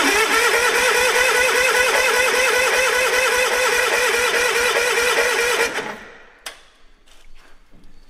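John Deere 318's two-cylinder Onan engine turned over by the electric starter for nearly six seconds without firing, a fast, even, pulsing chug that stops suddenly. The engine has no spark, and something sounds like it's catching in there: the owner fears an internal engine problem.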